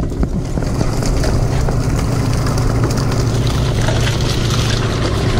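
Fishing boat's engine running with a steady low hum, under rustling and light knocks from a net being hauled aboard by hand.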